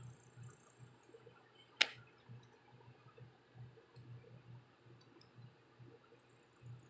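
A single sharp click a little under two seconds in, over a faint, steady low room hum.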